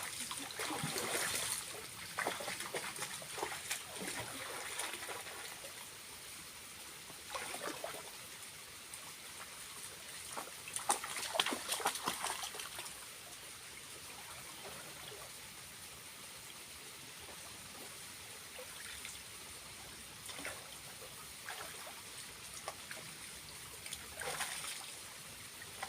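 Water trickling down a small waterfall, with several brief bouts of splashing, the loudest around halfway through.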